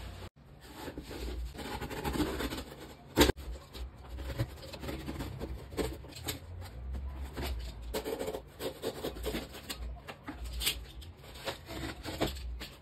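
Utility knife slicing through a corrugated cardboard box, with irregular scraping, rubbing and handling of the cardboard and scattered clicks. A sharp knock about three seconds in.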